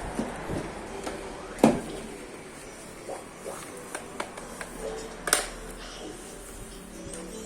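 Scattered light clicks and knocks of things being handled, with two sharper knocks, one about a second and a half in and one around five seconds, over faint background voices.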